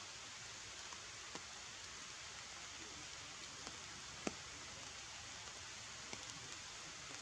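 Faint steady hiss of forest ambience, with a few short sharp clicks, the loudest a little past four seconds in.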